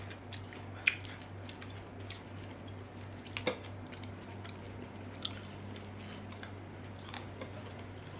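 Close-up mouth sounds of biting and chewing fried banana-stem chips, with sharp crunches about a second in and again around three and a half seconds, and softer chewing clicks between. A steady low hum runs underneath.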